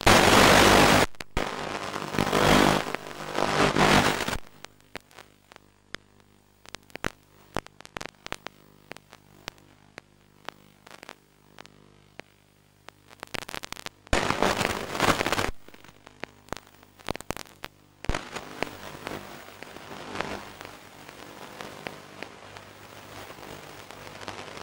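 Hiss and crackling clicks of radio static on an analog FPV video link's audio, with loud bursts of hiss at the start, about two to four seconds in and again around fourteen seconds, over a faint steady hum.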